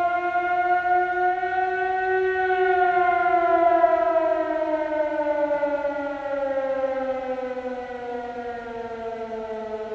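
Fire siren winding down: one wailing tone that holds and rises a little, then falls steadily in pitch from about two and a half seconds in.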